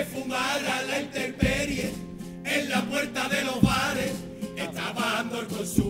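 Cádiz carnival chirigota performing: a male group chorus carries a wavering melody in unison over guitars, with low drum thumps about every two seconds.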